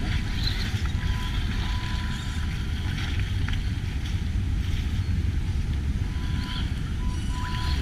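Wind buffeting the microphone as a steady low rumble, with a faint high whine that comes and goes.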